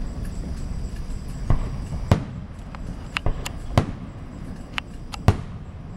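Fireworks going off: a string of sharp, irregularly spaced bangs and cracks, several in quick succession around the middle. The loudest burst comes near the end.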